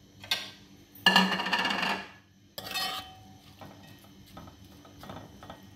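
Metal ladle scraping and clinking against an aluminium pot as sliced onions are stirred in hot oil: a long ringing scrape about a second in, a sharp clink near three seconds, then a few light taps.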